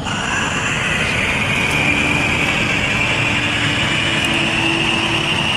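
Homemade soda-can jet engine running with a steady rushing roar.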